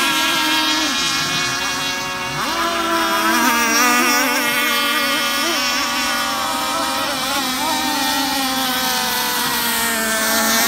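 Several radio-controlled racing boats running at speed on a pond, their motors whining together at several pitches that waver up and down.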